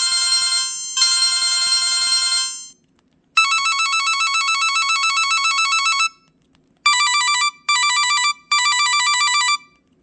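Preloaded electronic ringtones on a Casio G'Zone Boulder flip phone, played through its speaker. A two-part electronic ring, a pause, a long rapid trilling ring, another pause, then three short trilling rings in quick succession.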